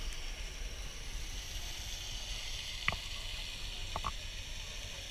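Water at the pool's surface close to the microphone: a steady soft hiss with a few sharp clicks, the clearest about three seconds in and two more near four seconds.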